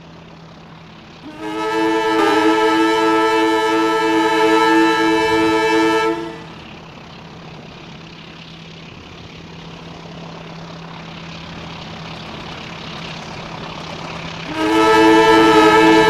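Passenger train's horn sounding a long chord-like blast of about five seconds, then the rumble of the approaching train slowly building, and the horn sounding again loudly near the end as the train runs through the station at speed without stopping.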